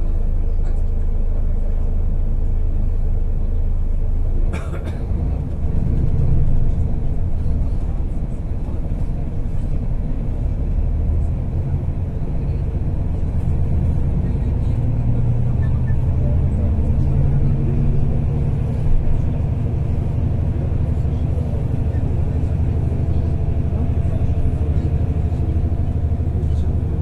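Bus engine and road rumble heard from inside the cabin, as the bus pulls away from a stop and picks up speed. A brief click comes about four seconds in, then the engine note rises.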